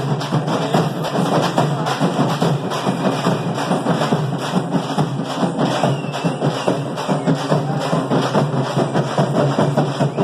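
Loud drum-led percussion music with a fast, steady beat.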